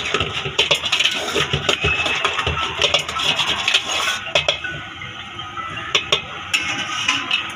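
Metal ladle clanking and scraping against a large metal wok while gobi manchurian is stirred in its sauce, with many quick clinks. The stirring eases off after about four seconds, leaving scattered clanks.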